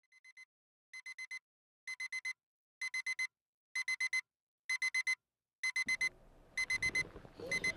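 Electronic alarm clock beeping in quick groups of four, about one group a second, growing louder after the first faint group. Low room noise comes in under it about six seconds in.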